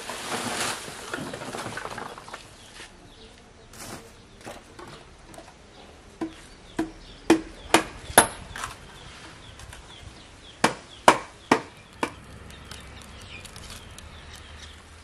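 Firewood and split bamboo sticks being knocked and cracked for the fire under the dye pot: sharp wooden knocks, about two a second, in two runs of six and four. Before them, for the first couple of seconds, the hiss of water pouring into the steel pot dies away.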